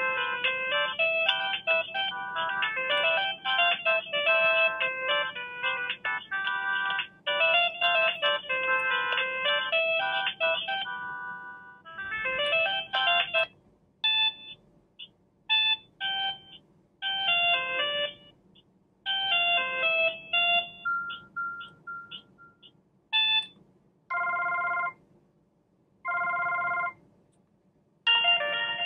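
Samsung B110 feature phone's loudspeaker playing its built-in ringtones as previews in the ringtone menu. A continuous tinny melody runs for about the first eleven seconds, then gives way to short snatches of tunes cut off one after another as the list is scrolled. Near the end come two repeated beeps about a second long.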